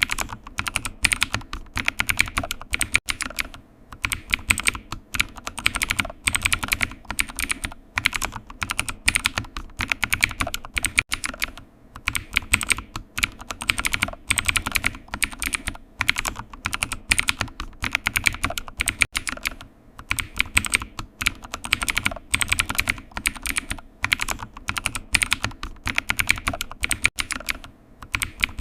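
Computer keyboard typing: fast runs of key clicks lasting a second or two, broken by short pauses.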